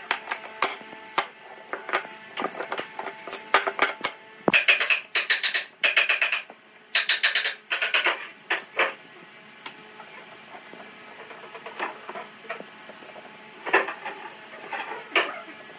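Wooden boards knocking and clacking as they are laid out on a wooden workbench. From about four and a half seconds in come several louder rustling, scraping bursts of the boards being handled in bar clamps over a plastic sheet, then quieter scraping.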